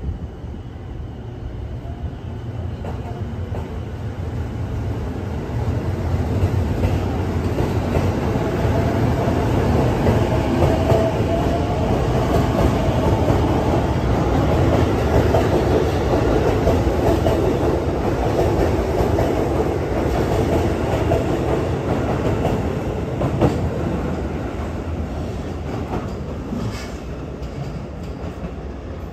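JR East E233-series electric train pulling out and accelerating past, its running noise and wheels clattering over rail joints growing louder over the first dozen seconds. It fades over the last ten seconds as the train draws away, with a few sharp clacks near the end.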